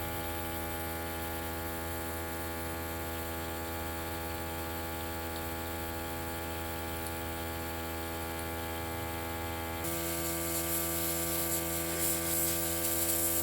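Small airbrush compressor motor running with a steady hum. About ten seconds in its pitch shifts slightly and a hiss of air joins it as the airbrush sprays paint.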